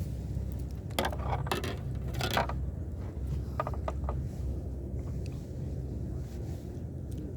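Several short clinks and rattles, a cluster about a second in and a quicker run of small clicks around the middle, over a steady low rumble.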